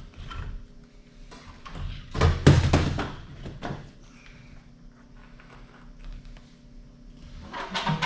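A cluster of knocks and clatter, loudest about two to four seconds in, with another short clatter near the end, as of hard objects being handled in a small room.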